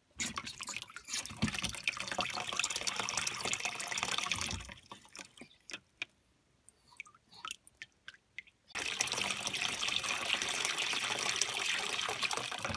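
Water rushing out of a brass ball float valve into a cold water tank as the float arm is pushed down: it runs for about four and a half seconds, shuts off to a few drips, then rushes again from about nine seconds in. The valve opening when the arm is lowered and shutting off when it is let up shows that the new valve is working.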